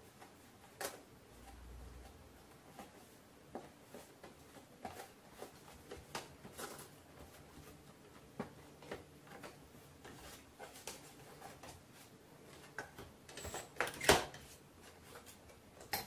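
Light clicks and knocks of hands handling the plastic underside and brush guard of an upturned iRobot Roomba robot vacuum during cleaning, with a louder knock near the end.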